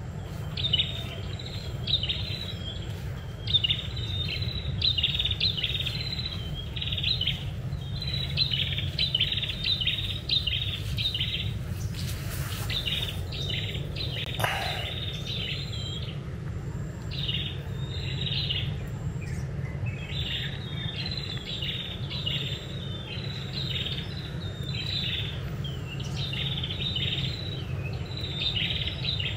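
Small birds chirping in rapid, repeated bouts of short high notes, pausing briefly past the middle, over a steady low background rumble.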